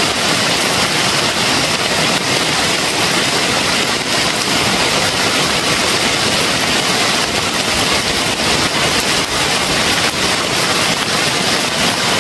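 Heavy rain falling steadily on a leaf-thatched shelter with a plastic tarp roof and the bamboo forest around it, an even hiss that never lets up.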